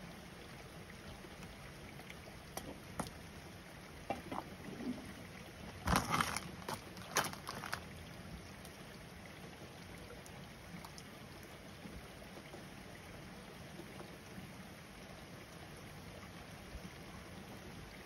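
Steady rain falling, a soft even hiss. A burst of sharp close taps about six to eight seconds in, with a few fainter ones a couple of seconds earlier, is the loudest sound.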